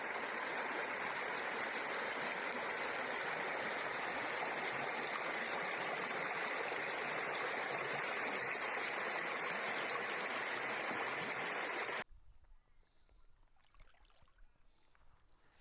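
Small mountain stream rushing with a steady, even hiss. It cuts off abruptly about twelve seconds in, leaving a much quieter stretch with only faint ticks.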